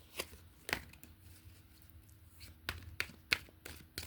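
Tarot cards being shuffled and handled: scattered sharp clicks and snaps of the card edges, about a dozen, over a faint steady low hum.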